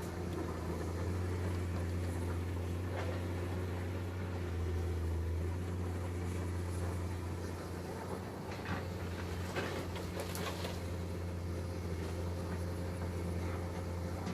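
Heavy excavator's diesel engine running at a steady drone, with a few short scraping, knocking sounds about nine to ten seconds in.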